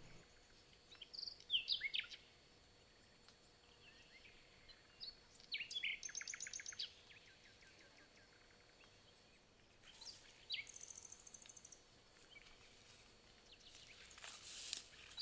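Faint woodland birdsong: short high chirps, a quick run of notes, and a very high thin trill. Near the end, footsteps swish through dry grass, growing louder as someone walks up close.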